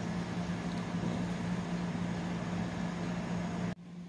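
A steady low machine hum with a hiss of room noise. It drops off suddenly near the end and carries on more faintly.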